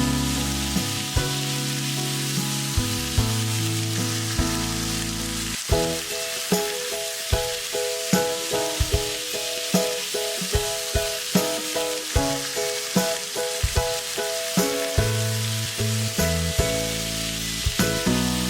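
Food sizzling as it fries in a pan, with stirring, under background music with a regular beat.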